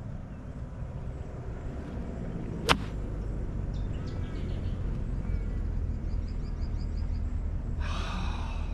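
A golf club strikes a ball once, a single sharp click a little under three seconds in, over a steady low wind rumble on the microphone.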